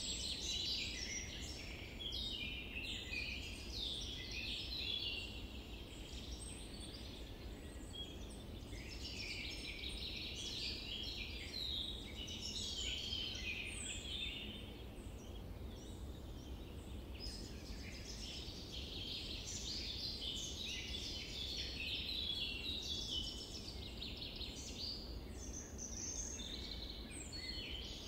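A dense chorus of many small birds chirping and trilling together, over a steady low background rumble.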